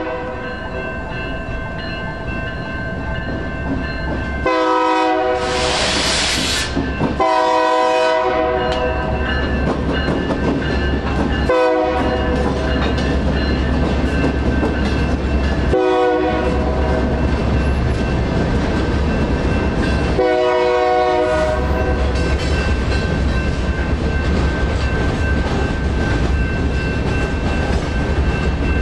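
Union Pacific freight train crossing a road: the diesel locomotive's horn sounds five blasts, long and short, over the crossing signal's steady ringing bell. From about eight seconds in, the heavy low rumble of the locomotives and the rolling freight cars takes over and carries on as the cars pass.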